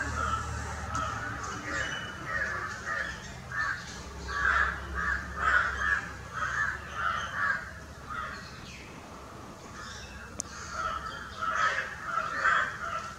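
Crows cawing in quick runs of harsh, repeated calls, with a quieter lull a little past the middle.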